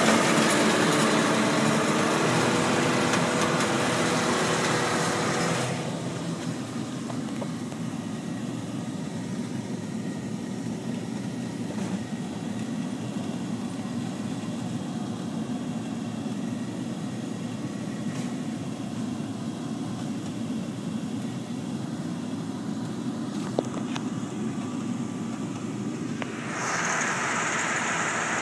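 A 3830 self-propelled hay windrower running, its engine and sickle-bar header working, with the sickle driven by a freshly repaired wobble box. It is loud and close for the first six seconds, then drops to a fainter steady drone as it pulls away.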